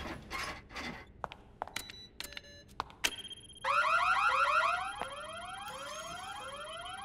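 Cartoon laboratory warning alarm: a rising whoop repeating about every three-quarters of a second over a steady high beep, starting about three and a half seconds in. A few clicks and knocks come before it.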